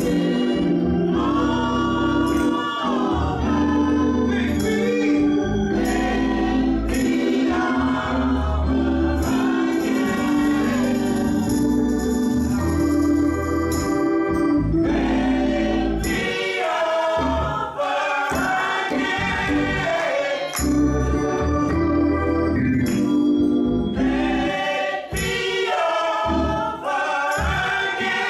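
Women's gospel choir singing with organ accompaniment, sustained organ chords under the voices.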